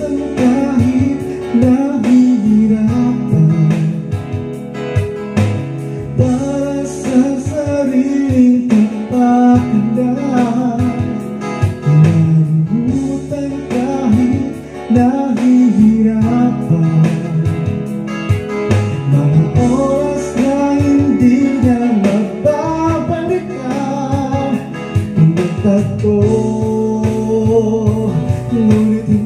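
Tagalog song played back on a Platinum Kapitan 2 DVD karaoke player: a voice singing the melody over a guitar-led backing track.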